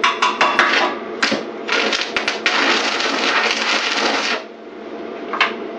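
Stick-welding arc crackling in a quick series of short tacks, then a steady crackling run of about two and a half seconds that cuts off, and one more brief strike near the end. The welder is tacking over and over to fill a burned-through hole in thin metal.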